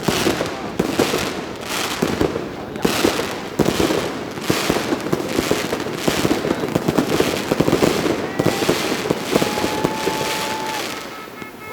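Fireworks display: a dense, continuous crackling and popping of many bursts, with louder bangs scattered irregularly throughout. A faint held whistle-like tone comes in about two-thirds of the way through.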